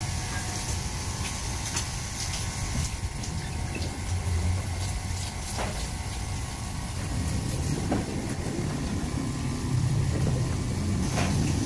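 Water from a handheld shower sprayer running over a wet cat's fur and splashing into a stainless steel sink, over a steady low rumble that grows louder in the second half.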